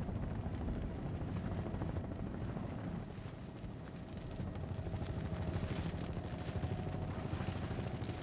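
Helicopter running steadily, heard from aboard: a low, fast-pulsing rotor beat with a faint steady whine above it.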